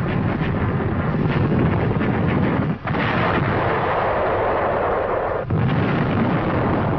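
Heavy artillery barrage: continuous gunfire and shell explosions in a dense rumble, dropping out briefly twice, about three and five and a half seconds in.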